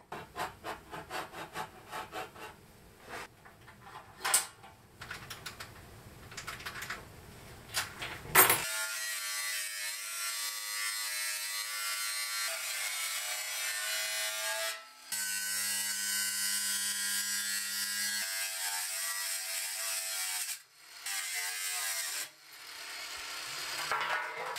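Angle grinder with a cutting disc slicing through the sheet steel of a jerry can: a loud, high grinding with a steady whine, which stops and starts again a few times. It begins about eight seconds in, after some scattered clicks and knocks of handling the can. Near the end the cut goes through and the two halves of the can drop onto the paving.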